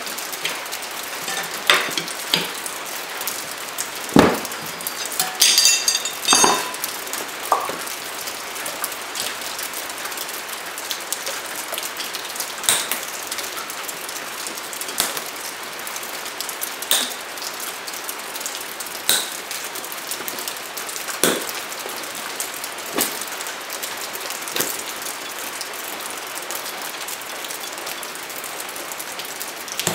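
Tire irons and a knobby dirt bike tire being worked onto a spoked wheel rim: scattered knocks and clinks, with one ringing metallic clink about six seconds in, over a steady hiss.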